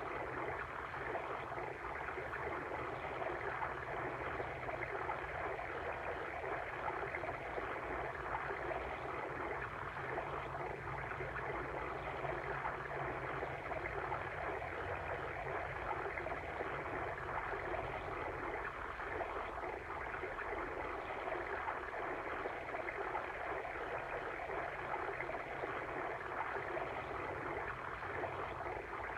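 Water stream babbling steadily, an unbroken rushing and gurgling.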